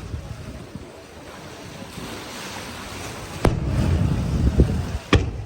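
Fireworks shells bursting: a sharp bang about three and a half seconds in, followed by a rolling low rumble, and a second sharp bang near the end.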